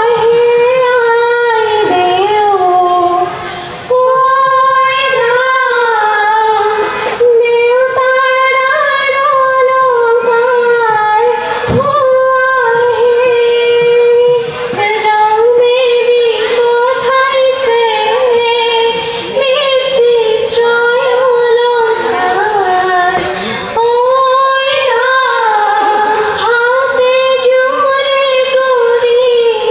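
Group of women singing a melody together into microphones, in long held notes that bend and waver in pitch, with short breaths between phrases.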